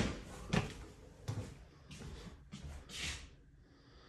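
Footsteps climbing stairs: sharp thuds about half a second apart, loud at first and fading after about a second, then a soft rustle near three seconds.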